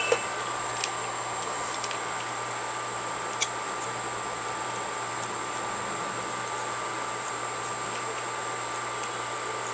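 Steady background hiss with an electrical hum, like a fan or mains equipment running in a small room. Two short clicks break it, one just under a second in and a sharper one about three and a half seconds in.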